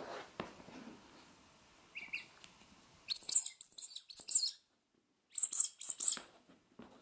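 Small soft rubber squeaky bath toys squeezed by hand, their squeakers giving high-pitched squeaks: a short one about two seconds in, a long wavering run of squeaks, then three quick squeaks near the end. Faint knocks of handling the toys at the start.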